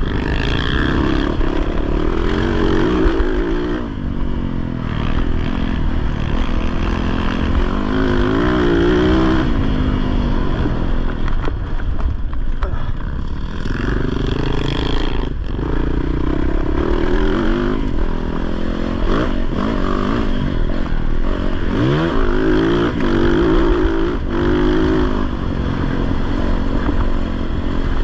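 Off-road racing motorcycle engine revving hard, its pitch rising and falling again and again as the rider works the throttle and shifts, over a constant low rumble and rattle from the bike on rough ground.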